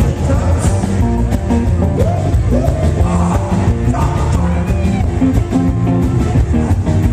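Live rock and roll band playing with a singer's voice over a steady beat.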